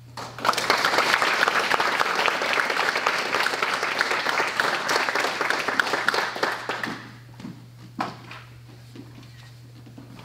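A small audience applauding, starting about half a second in and dying away after about seven seconds. A single knock follows about a second later.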